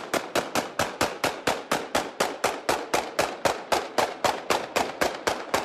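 Celebratory automatic gunfire: a long, steady string of shots, about five a second, that drops away abruptly near the end.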